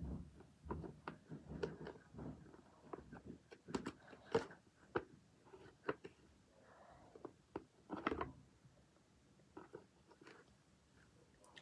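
Small toys being handled and moved about: irregular clicks, taps and short rustling scrapes, the sharpest about four and eight seconds in.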